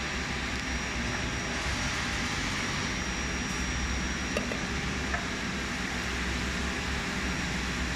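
Steady mechanical running noise of a semi-automatic powder auger filling machine, with two light clicks around four and five seconds in.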